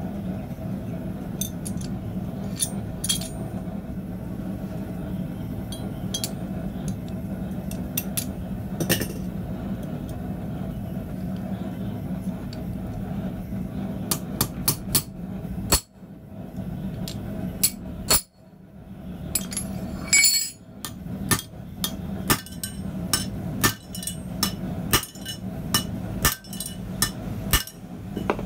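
Hand-hammer blows on steel, heading over a hot 7 mm rivet at the pivot of blacksmith tongs on the anvil without a rivet header. The sharp, ringing strikes come scattered at first, then settle into a steady rhythm of about three blows every two seconds, over a steady low hum.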